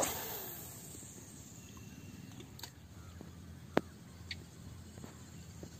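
A fishing rod swishing through a cast, with line rushing off the reel and the rush trailing off over about a second as the frog lure flies out. A few sharp faint clicks follow, the loudest near the middle.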